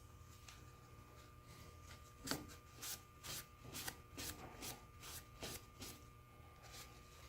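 Faint rubbing or scrubbing strokes on a small Armstrong machinist jack as it is cleaned after an Evapo-Rust soak. There are about two to three strokes a second, starting about two seconds in and stopping about a second before the end.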